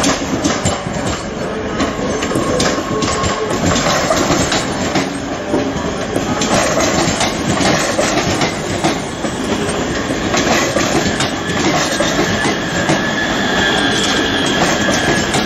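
Two coupled Hitachi Class 385 electric multiple units running past, wheels clacking over rail joints and points with a continuous rolling rumble. A faint high whine enters in the last few seconds.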